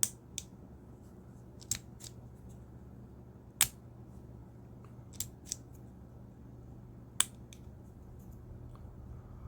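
Unloaded Taran Tactical custom Glock 34 being worked by hand: the slide racked and the trigger dry-fired to check the trigger reset, giving about seven sharp metallic clicks at irregular spacing, the loudest near the middle.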